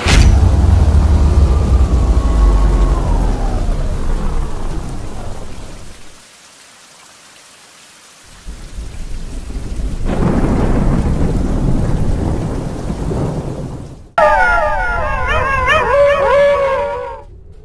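A loud thunderclap at the start with heavy rain, its rumble rolling away over several seconds; a second deep rumble swells up about halfway through. Near the end, several overlapping wavering howls sound together for about three seconds, then stop.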